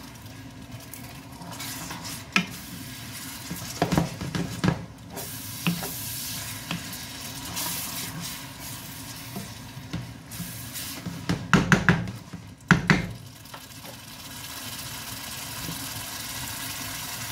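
Minced pork sizzling in a frying pan while a wooden spatula stirs and scrapes through it, with a steady hiss and scattered sharper knocks of the spatula against the pan, loudest in a cluster about two-thirds of the way through.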